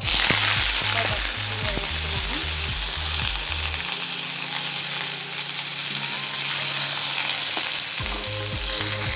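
Mustard seeds and cumin seeds sizzling in hot oil for a tempering (tadka). The sizzle starts suddenly and stays loud and steady.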